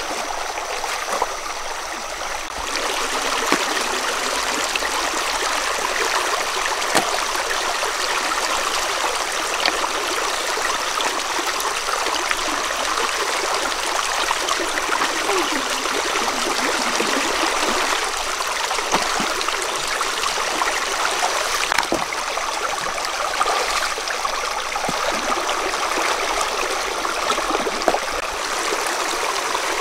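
A shallow rocky stream running steadily over a low stone weir, a continuous rushing of water, with a few brief splashes from wading and moving stones in it.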